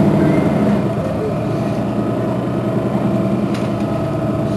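Mercedes-Benz Citaro Facelift city bus standing still with its engine idling: a steady, low engine hum, dipping slightly in loudness about a second in.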